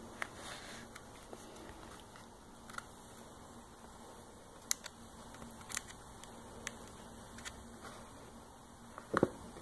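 Faint, scattered small ticks and paper rustles from fingers pressing and smoothing a decal's paper transfer sheet and masking tape against a stand mixer's metal head. A slightly fuller rub comes near the end, over a faint steady hum.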